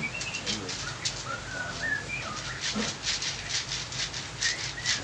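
Hands rubbing over skin in quick, repeated massage strokes, several a second, with a few faint bird chirps over them.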